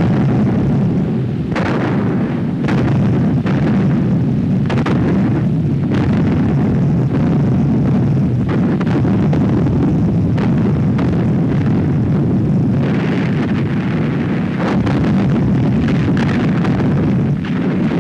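Battle sounds: a steady heavy rumble of explosions and gunfire, broken by repeated sharp bangs at irregular intervals.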